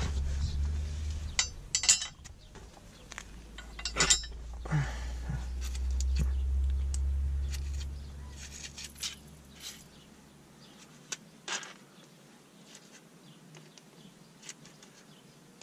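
Metal hand tools clinking and rattling as they are handled on the ground, in scattered sharp clinks that are busiest in the first few seconds. A low rumble runs underneath and fades away about ten seconds in.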